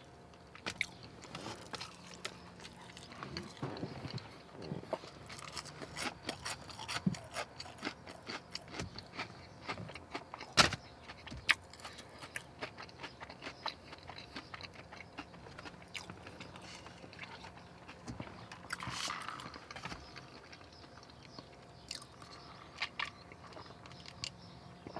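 Close-miked chewing and mouth sounds of a person eating chili cheese fries and onion rings: many small, irregular smacks and clicks, with a sip through a straw near the end.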